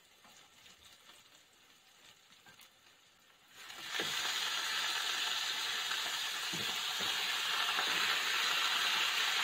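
Raw chicken pieces going into a hot sauté pan. It is quiet at first, then about four seconds in a loud, steady sizzle starts as the meat hits the pan, with a few light knocks against the pan.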